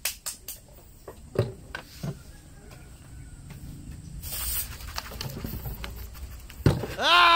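Plastic bottles and tape being handled, with scattered sharp clicks and crinkles and a short hiss about four seconds in. Near the end, a person breaks into a loud, drawn-out yell.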